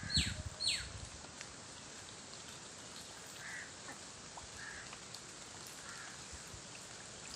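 Birds calling: two quick calls that sweep down in pitch in the first second, then a few faint, short calls spaced a second or so apart, over a faint steady hiss.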